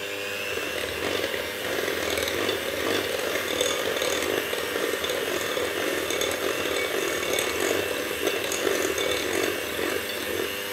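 Electric hand mixer running, its beaters working an egg into a creamed butter-and-brown-sugar batter in a glass bowl. A steady motor hum turns into a louder, noisier churning about half a second in as the beaters work through the mix.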